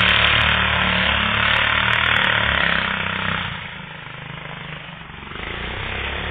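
Racing lawnmower engine running with a steady note, loud at first, then dropping away for a couple of seconds before coming back up near the end.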